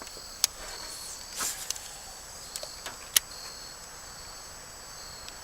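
Steady high-pitched chorus of crickets or other insects, with two sharp clicks, the louder one about three seconds in, and a brief swish about a second and a half in.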